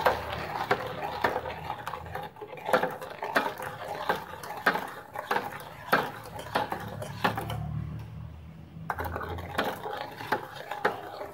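Metal spoon stirring a thick bread-and-milk mixture in a metal pot, clinking against the pot's side and bottom about twice a second in an uneven rhythm, with a short pause about eight seconds in.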